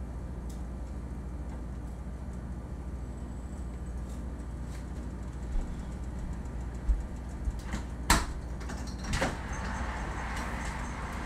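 Kitchen work sounds: a few sharp knocks and clatters, the loudest about eight seconds in, over a steady low hum, with a soft hiss starting about nine seconds in.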